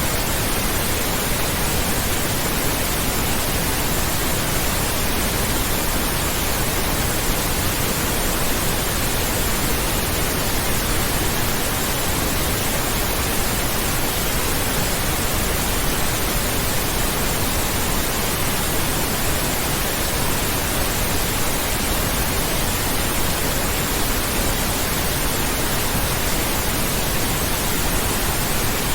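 Steady pink noise: an even, unbroken hiss spread from the lowest to the highest pitches, with no change over time. It is a tinnitus-masking sound.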